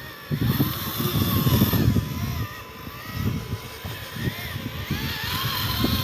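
Radio-controlled dump truck driving off loaded with dirt: its small electric drive motor and gears whine, the pitch rising and falling with the throttle, over a gusty low rumble.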